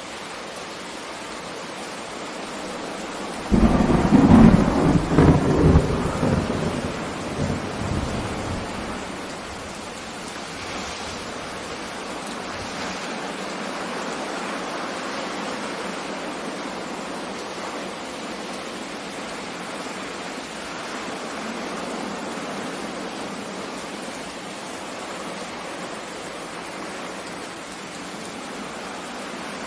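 A thunderclap breaks in suddenly about three and a half seconds in, then rumbles and fades over the next five seconds, over the steady hiss of heavy rain.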